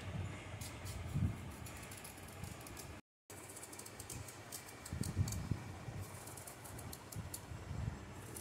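Hand-held vegetable peeler scraping thin strips of skin off an eggplant: quick, repeated short scratchy clicks, with soft low thumps of handling. The sound cuts out completely for a moment about three seconds in.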